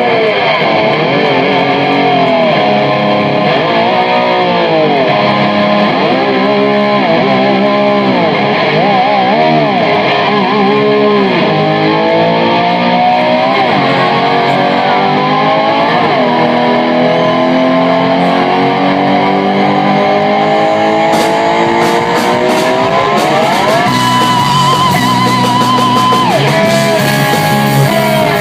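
Electric guitar played with a slide, imitating a motorbike. The pitch swoops quickly up and down, then climbs in several long rising glides that drop back and start again, and settles into a held note near the end.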